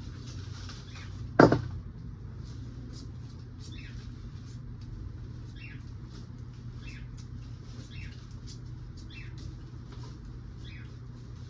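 Small birds chirping in short, repeated calls over a low, steady hum, with one sharp loud knock about a second and a half in.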